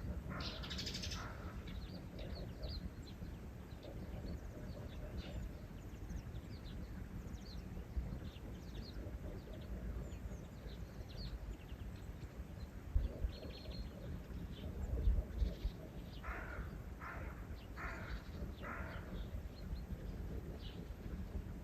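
Small birds chirping here and there over a steady low rumble, with a louder, lower bird call repeated four times about two-thirds of the way through.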